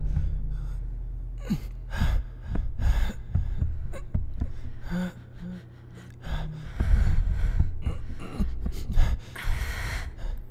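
Heavy, irregular gasping breaths of a person straining, a quick series of sharp in- and out-breaths with short pauses between.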